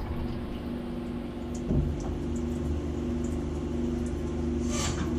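Skyfire SVM-2 CNC mill humming steadily at rest, its cutting and coolant spray just stopped at the end of the program. There is a single short knock about two seconds in and a few light clicks near the end.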